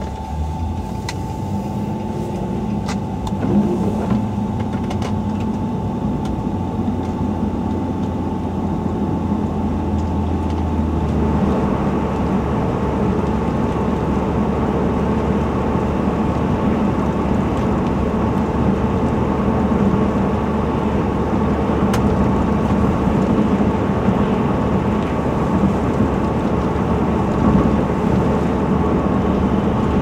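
Steady road noise inside a moving car: engine hum and tyre hiss on wet pavement, with a thin steady tone throughout. The noise steps up and grows louder about eleven seconds in.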